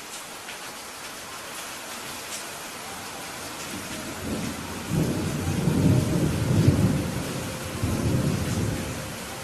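Steady rain falling, with a low roll of thunder that builds about halfway through, rumbles loudest for a few seconds and fades near the end.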